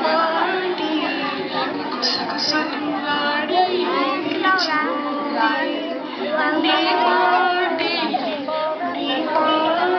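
A song with high female singing and some music, played for a dance, mixed with a crowd of children's voices.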